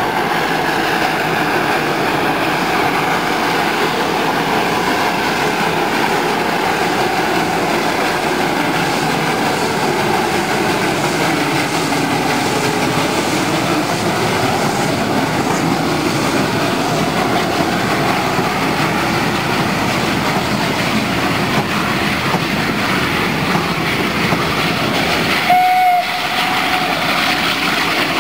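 Steam locomotive OL12-7 and its train of old coaches running past on the rails, a steady loud rumbling rail noise. Near the end comes one short whistle blast.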